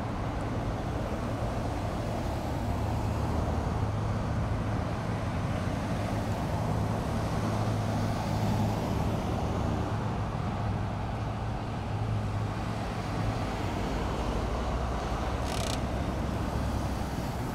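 Road traffic on a busy street, with a steady low engine hum under it and a short hiss near the end.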